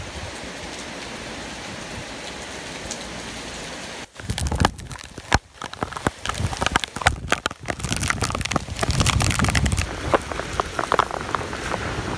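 Hurricane Maria's back-eyewall storm. First heavy rain hisses steadily for about four seconds. Then wind gusts batter the microphone with a deep rumble and crackling rain spatter, gusting harder near the end.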